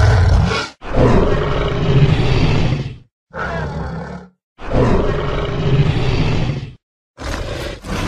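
Spinosaurus roar sound effects, the designed vocalisation of an extinct dinosaur. A string of separate roars, each about one to two seconds long, is cut apart by brief silences.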